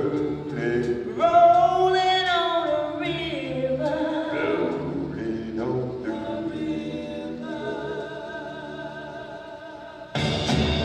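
Music with several voices singing together, growing quieter. About ten seconds in, a louder, fuller music track cuts in suddenly.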